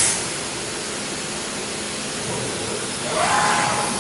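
Linear-ATC CNC router running with a steady hiss that starts abruptly, growing louder about three seconds in.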